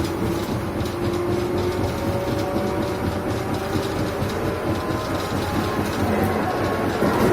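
JR Shikoku 121 series electric train running, with a faint whine that slowly rises in pitch over a dense rumble and rattle from the wheels and bogie.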